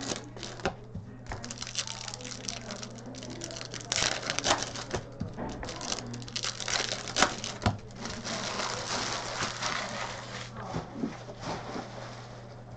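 Hockey card packs being opened and the cards handled: wrappers crinkling and cards clicking and rustling against each other in quick, uneven bursts.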